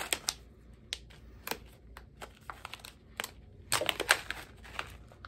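Foil tea pouch crinkling and crackling as it is handled and pulled open at the top, with a denser run of crinkles about four seconds in.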